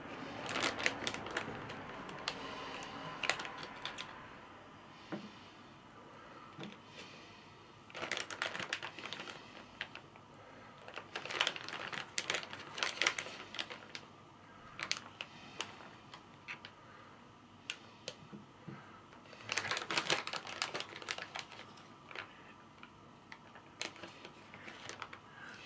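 Metal kitchen tongs clicking and tapping against a ceramic bowl in several short flurries of rapid clicks, with single taps between them, as pieces of pickled leek are set into the bowl.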